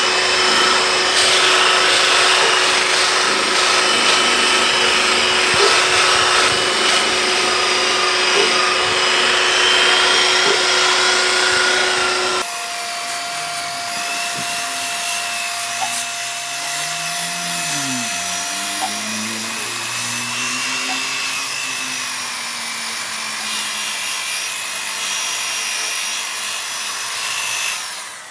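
Electric rotary polisher running steadily, its buffing pad working on a plastic headlight lens. The sound changes abruptly and gets quieter about halfway through.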